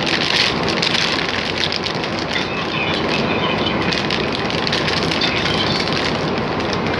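Thin plastic food bags crinkling and rustling as they are handled and sauce is tipped out of one. Underneath is a loud, steady rushing noise.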